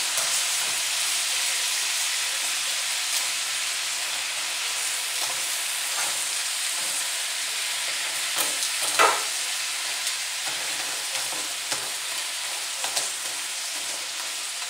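Crab legs sizzling steadily in melted butter and seasoning in a large skillet, with the clicks and scrapes of metal tongs turning them against the pan. One louder knock comes about nine seconds in.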